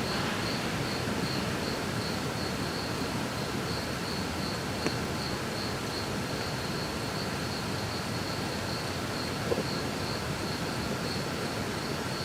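A night insect chirping steadily, a high-pitched pulse repeating about three times a second, over a constant background hiss.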